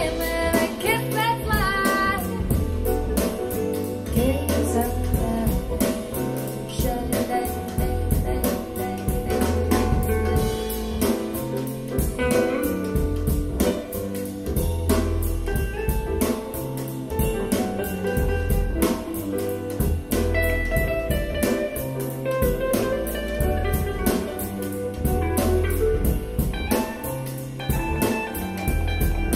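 Jazz-tinged band music with drum kit, bass, guitar and a singing voice, played back over hi-fi stereo speakers as a recorded sound sample, with a steady beat.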